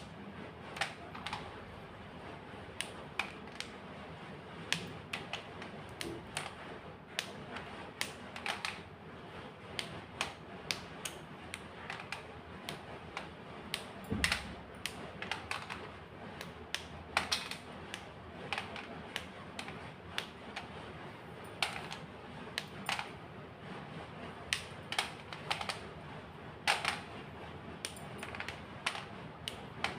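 White chalk being crunched and crushed: irregular sharp crackling crunches, sometimes single and sometimes in quick clusters.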